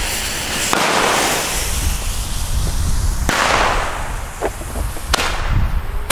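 Three Weco Flash Bang small mortar tubes firing: a fizzing fuse hiss, then a series of sharp reports a second or two apart as the shells launch and burst overhead with flash bangs.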